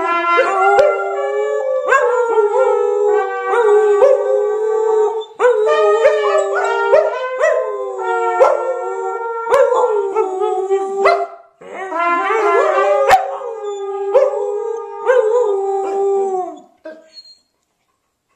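Several Samoyeds howling together in long, held, wavering notes. The howling breaks off briefly about five seconds in and again near the middle, then dies away about a second before the end.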